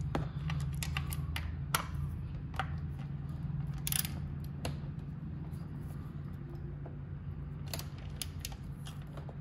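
A metal wrench clicking and tapping against small screws as it is fitted and turned to snug them down, in irregular single clicks, over a steady low hum.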